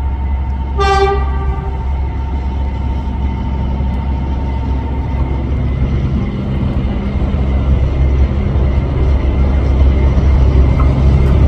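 A train horn gives one short blast about a second in. Under it runs the steady low rumble of a train on the tracks, growing louder toward the end.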